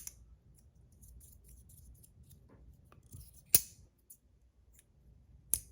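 Magnetic slider fidget being slid by hand, its plates snapping into place with a few sharp clicks, the loudest about three and a half seconds in, with faint rubbing and ticks between. The slide is a bit rough under very strong magnets.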